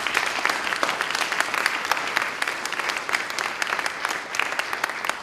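Audience applauding: a dense patter of hand claps that starts abruptly and thins out near the end.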